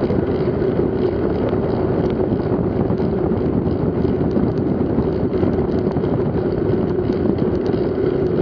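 Wind noise on the camera microphone from a mountain bike moving at speed, mixed with its tyres running over a rough farm road: a steady loud rush and rumble with a constant hum and scattered small ticks.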